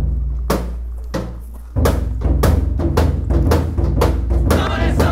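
Festival drums with a deep booming low end and sharp wooden clacks, sparse at first, then quickening to about four a second. Shouting voices come in near the end.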